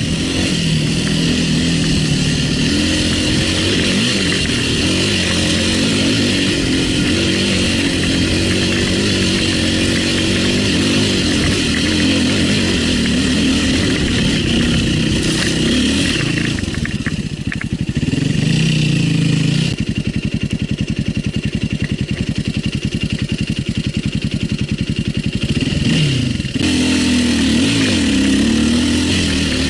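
Enduro dirt-bike engine revving up and down under throttle on a climb. About two-thirds in it drops to a steadier, lower run, then revs again near the end.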